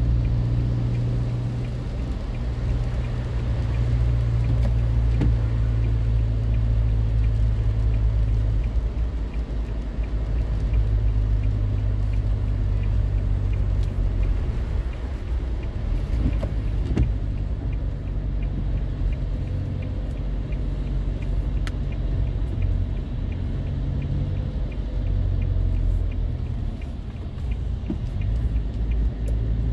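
Steady low rumble of a car's engine and tyres on wet asphalt, heard from inside the cabin while driving.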